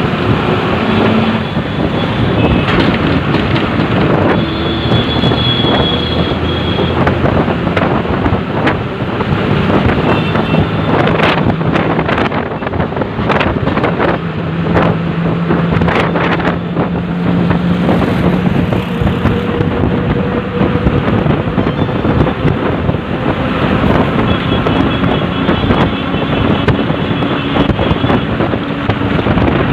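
Road vehicle noise: an engine running amid traffic, with repeated knocks and rattles and wind on the microphone.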